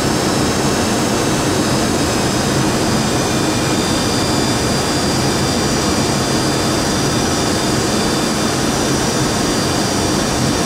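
Steady flight-deck noise of a Boeing 737-200 on approach: a constant rush of air with a thin, high engine whine from its Pratt & Whitney JT8D-17A turbofans over a low hum.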